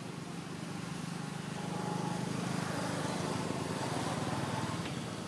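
A motor vehicle's engine running with a steady low hum, growing louder about two seconds in and easing off toward the end.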